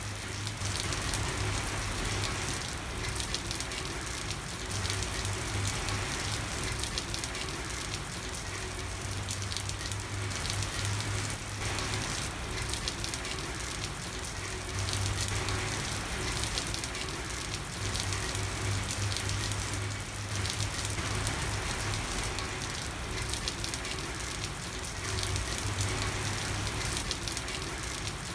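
Steady rain falling on a hard street surface, a dense even patter of drops, with a low hum under it that swells and fades every few seconds.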